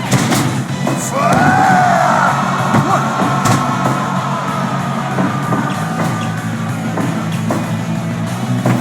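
Rock music with drums, with a voice holding one long note starting about a second in and fading out a few seconds later.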